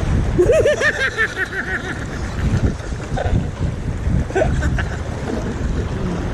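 Wind buffeting the camera microphone in a steady low rumble over the sound of the sea. A person's voice wavers briefly in the first second or so.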